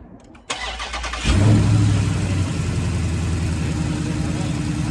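Dodge Charger's swapped-in 392 HEMI V8 started: the starter cranks for under a second, the engine catches with a loud flare of revs and settles into a steady idle. It is breathing through a freshly installed Mopar cold air intake.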